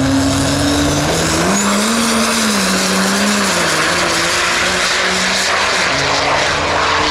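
Vintage pickup's turbocharged diesel engine at full throttle, pulling away down a drag strip. Its note climbs about a second in, then steps down twice as it goes.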